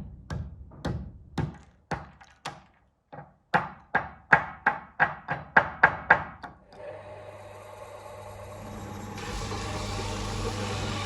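A run of sharp hammer strikes on metal, each with a short ring. They come about two a second, quicken to about three a second, then stop. Then an electric shop machine starts up and runs steadily with a low hum.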